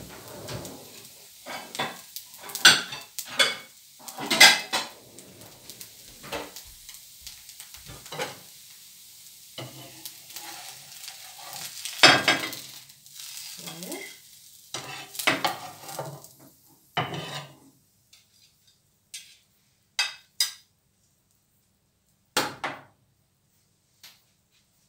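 Vegetable dosa sizzling in a hot pan while a metal spatula scrapes and clinks against the pan, with the loudest knocks a few seconds in and about halfway. About two-thirds of the way through the sizzle stops, leaving a few separate clinks.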